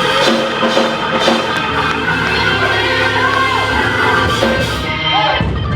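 Church organ holding sustained chords under the sermon, with voices from the congregation shouting and whooping over it in a large hall.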